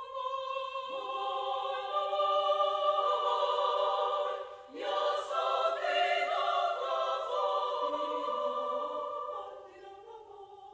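Women's choir singing Macedonian songs. The sung notes are held long, there is a short break in the song about halfway through, and the singing dies away near the end.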